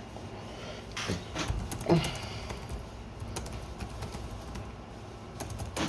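Irregular clicks of typing on a computer keyboard, with a louder knock about two seconds in, over a low steady background rumble.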